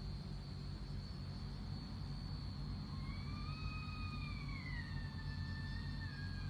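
A long, drawn-out wailing cry begins about halfway through, wavering and slowly sliding down in pitch, over a steady low hum and a thin steady high tone.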